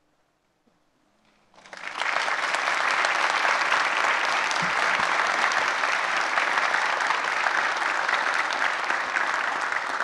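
Audience applauding, starting suddenly about a second and a half in after a moment of near silence and keeping up steadily.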